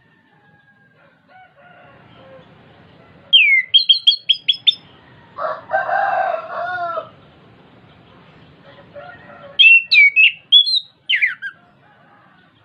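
Chestnut-capped thrush (anis kembang) singing in short bursts of clear whistled notes: a downslurred note followed by a quick run of five sharp notes, and another burst of varied whistles near the end. In the middle a lower, rougher call lasts about a second and a half, ending in a falling slur.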